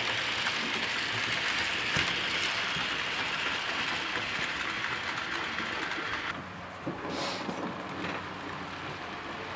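HO-scale model freight train running along the layout's track: a steady rushing noise of wheels on rail that drops off suddenly about six seconds in.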